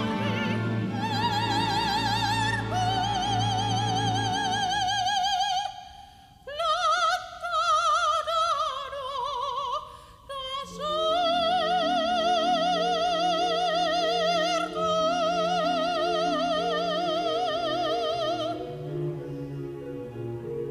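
Operatic soprano singing with wide vibrato over a symphony orchestra. After a short break about six seconds in, she sings a falling phrase, then holds one long note over repeated orchestral chords. Near the end the voice stops and the orchestra plays on alone.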